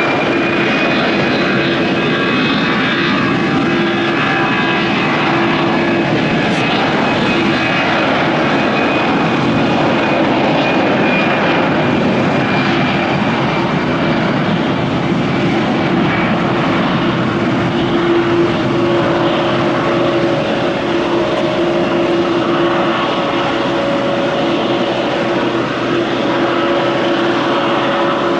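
StarFlyer Airbus A320 jet airliner taking off at full thrust: a loud, steady rush of engine noise with a high engine whine over it.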